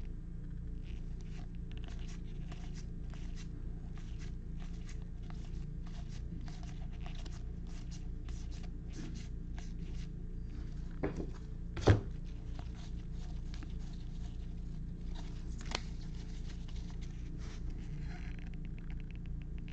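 Stack of baseball trading cards being flipped through by gloved hands, each card sliding off the pile with a light flick, several a second, over a steady low hum. One sharper knock about twelve seconds in.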